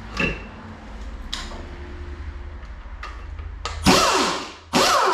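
A power tool run in two short bursts near the end, its pitch falling in each burst, after a few light metal clicks. The tool is working the connecting-rod bolts of a 5.3 LS engine during teardown.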